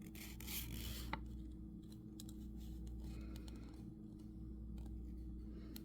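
Faint rustles and a few soft clicks from a paper checklist being handled, over a low steady hum.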